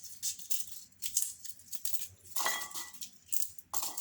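Heads of red garlic being rubbed apart by hand, the dry papery skins crackling in many quick strokes, with two ringing clinks on a dish, about halfway and near the end.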